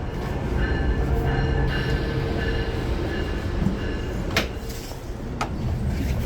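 Passenger train running: a steady low rumble with a faint high whine, and two sharp clicks about four and five seconds in.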